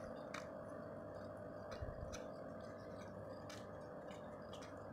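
Faint, scattered wet clicks and smacks of a mother cat licking a newborn kitten clean, over a faint steady hum.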